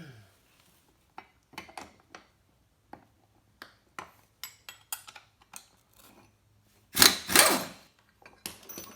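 Light metal clinks of a socket and tools being fitted, then about seven seconds in a short, loud burst from an impact gun spinning off the 19 mm nut on the mower's caster fork bolt.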